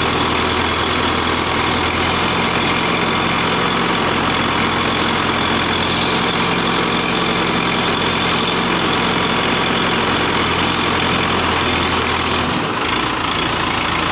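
ACE hydra crane's diesel engine running steadily, with a brief change in its low note about twelve and a half seconds in.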